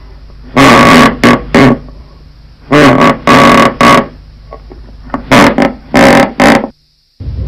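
Wooden floorboards creaking in repeated loud, pitched creaks, some long and some short, heavily bass-boosted and distorted to clipping. The sound cuts out briefly near the end.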